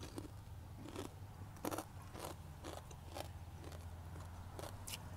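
Crunchy chewing of crisp fried dried fish: a string of short, irregular crunches as the mouthfuls are bitten and chewed.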